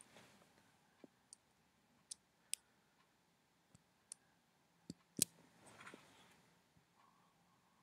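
Quiet, scattered sharp clicks from a computer being operated, about eight of them, the loudest a pair about five seconds in. A soft hiss comes a little before six seconds.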